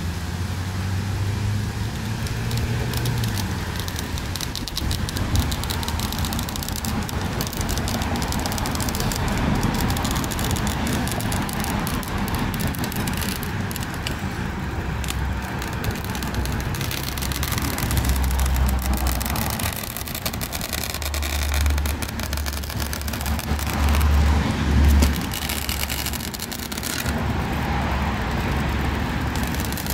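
Woven polypropylene landscape fabric rustling and crinkling as it is handled and cut close by, over a low, uneven rumble that swells twice.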